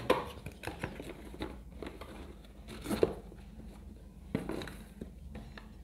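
A cardboard box being opened by hand: scattered rustles and scrapes of the cardboard flaps, with a few sharp light knocks as a plastic toothpaste dispenser is taken out and set down.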